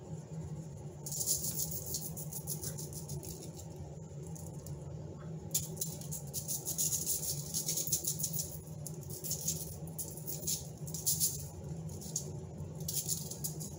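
Seasoning salt shaken from a shaker over fish fillets on aluminium foil: a rattling, pattering sound repeated shake after shake, starting about a second in.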